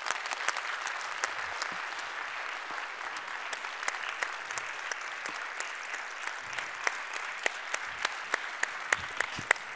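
Audience applauding: a dense, steady wash of hand clapping with a few sharper individual claps standing out.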